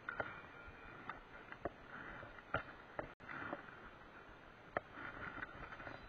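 Spinning reel being wound in short spells while a hooked carp is played, with scattered sharp clicks and knocks from the reel and rod handling.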